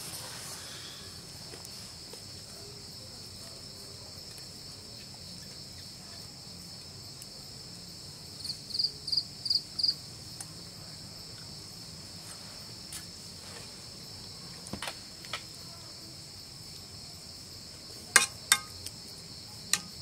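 Crickets chirping steadily, with four louder chirps about halfway through. Near the end come a few sharp knocks, a metal spatula striking the aluminium pan.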